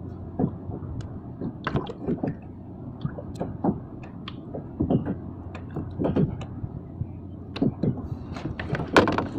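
Water lapping and slapping against a fishing kayak's hull in irregular knocks and splashes, over a steady low hum.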